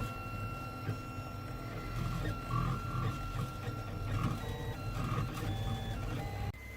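3D printer running a print, its stepper motors whining in short tones that jump from pitch to pitch as the head moves, over a low pulsing hum.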